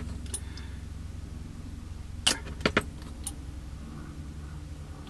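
A few short, light clicks and taps as the plastic screw cap of a square glass bottle of Tamiya quick-setting thin cement is unscrewed and handled, over a low steady hum; the clicks come in a cluster a little past the middle.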